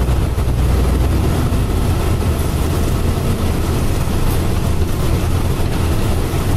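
Hakodate streetcar running along its tracks, heard from inside the car: a steady low rumble.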